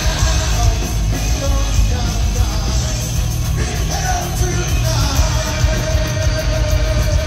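Heavy metal band playing loud, live: distorted electric guitar, bass and drums, with the singer's voice over them and a held note in the second half.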